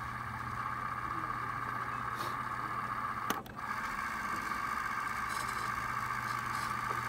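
Nakamichi 480Z cassette deck winding tape at high speed: a steady whir of the tape transport fast-forwarding, broken by a click about three seconds in as it switches to rewind, then whirring again until it stops with a click near the end. A low steady hum runs underneath.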